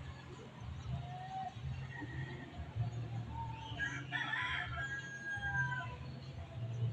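A rooster crows once, about four seconds in, ending in a long held note. A steady low hum runs underneath.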